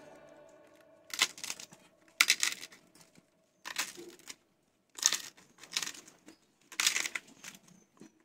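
A hand squeezing and mixing boiled taro leaves with crab pieces and fried dry red chillies on a stainless steel plate: short rustling, squishing sounds, about one a second.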